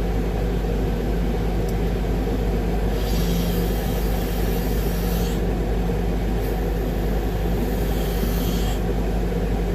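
Concrete mixer truck's diesel engine running steadily with the drum turning to discharge concrete, a constant low rumble. A hiss comes in twice, each for about two seconds, about three seconds in and again past six seconds.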